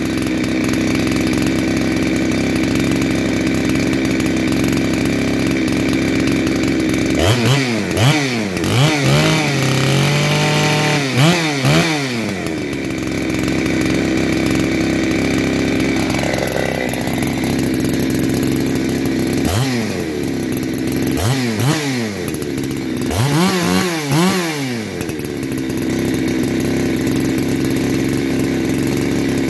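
Clone Husqvarna 372XP two-stroke chainsaw idling, with the throttle blipped in two spells of quick revs rising and falling, about seven and twenty seconds in. It is freshly rebuilt with a new piston ring and running in, and the owner says it is running funny and needs more fuel on the low-speed setting.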